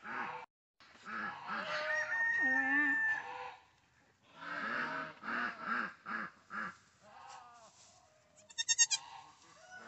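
Farm animals calling: runs of short, repeated calls about three a second, with a longer held call that drops sharply in pitch between two and three seconds in. A quick burst of sharp clicks, the loudest sound here, comes near the end.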